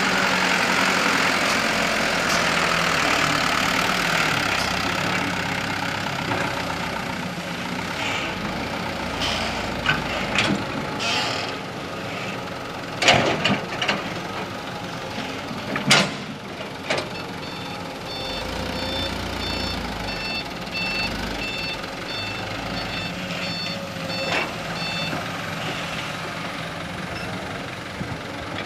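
Mitsubishi Canter dump truck's diesel engine running as the truck manoeuvres, with two sharp knocks near the middle. In the last third its reversing alarm beeps steadily for several seconds as it backs up.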